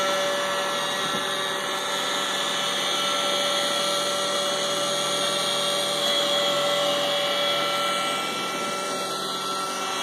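Roomba robot vacuum running on carpet: a steady motor hum with a whine of several held tones over it.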